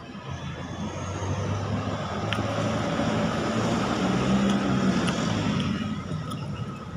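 A motor vehicle passing on the road, its engine hum and tyre noise swelling over a few seconds and fading near the end.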